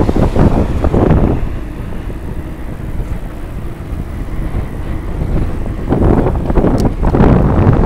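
Wind buffeting the microphone of a camera on a moving bicycle: a loud, gusty rumble that eases for a few seconds in the middle and picks up again near the end.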